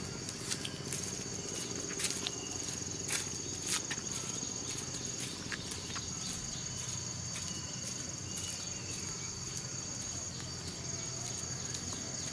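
Insects chirring in two steady high tones, with the clicks of sandal footsteps on a concrete path in the first few seconds that thin out as the walker moves away.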